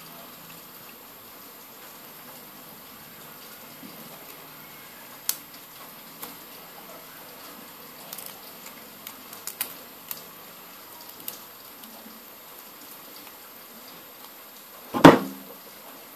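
Small scattered clicks and taps of a plastic opening card working along the edge of a cracked Huawei Y9 2018 display as it is pried off the frame, over a steady background hiss. One much louder knock comes near the end.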